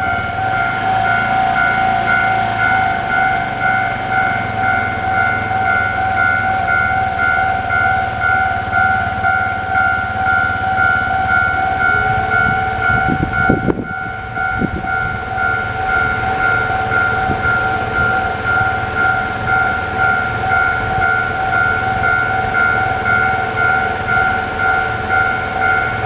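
Japanese railway level crossing's electronic warning bell clanging in a fast, steady rhythm of pulsed tones. It is loud. About halfway through, a second, lower steady tone joins in.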